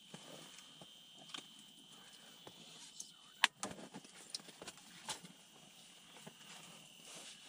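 Scattered clicks, light knocks and rustling from handling a freshly caught burbot and fishing gear, with the sharpest click about three and a half seconds in, over a faint steady high hum.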